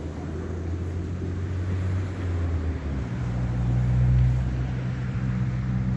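A vehicle engine running close by: a low, steady hum that steps up in pitch about three seconds in and gets a little louder.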